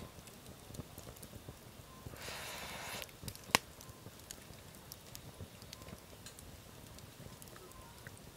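Wood campfire crackling with scattered small pops, and one sharp loud pop about three and a half seconds in. A soft rustle lasts about a second just before it.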